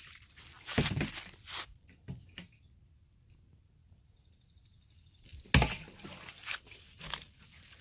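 Footsteps crunching on dry fallen leaves and grass, a few scattered steps with a quieter pause in the middle and the loudest crunch about five and a half seconds in.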